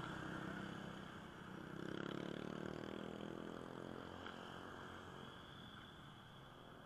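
Motorcycle and scooter engines running in passing street traffic, swelling loudest about two seconds in and then fading, over a steady hiss.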